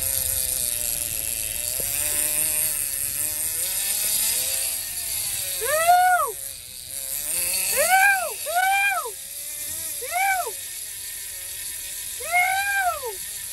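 Okuma Makaira big-game lever-drag reel screaming as a marlin pulls line off it: a steady buzz at first, then a run of rising-and-falling whines a second or two apart as the fish surges.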